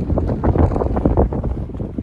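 Strong wind buffeting the microphone: a loud, gusting low rumble that surges and eases unevenly.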